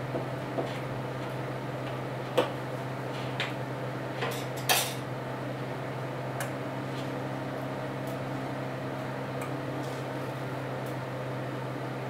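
A spoon clinking and tapping against a glass mixing bowl as a mixture is stirred, in scattered strokes, the loudest about two and a half and nearly five seconds in. A steady low hum runs underneath.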